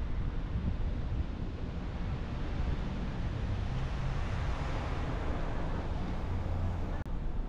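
Car driving on a city road: steady tyre and road noise over a low rumble, swelling briefly past the middle, with a short click near the end.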